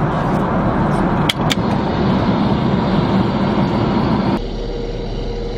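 Steady jet airliner cabin noise in flight, with two sharp clicks about a second and a half in. About four seconds in, the noise drops abruptly to a lower, duller hum with a faint steady tone.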